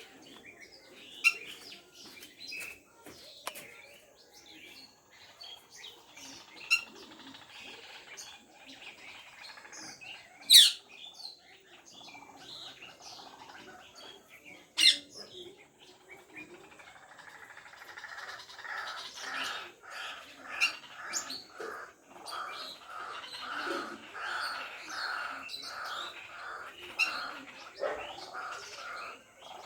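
Small birds chirping, with scattered short calls and four loud, sharp chirps in the first half. From a little past halfway, a fast, steadily repeated chatter joins in.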